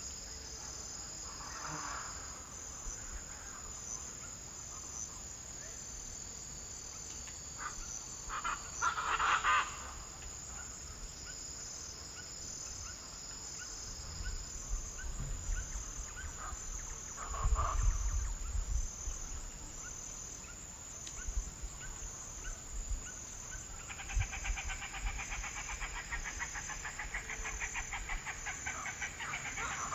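Insects chirring in a steady, high, pulsing trill, with a few short animal calls now and then. About three-quarters of the way in, a dense, rapid pulsing chorus joins in.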